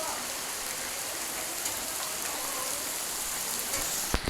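Steady hiss of rainwater rushing and running as floodwater, with a brief knock near the end.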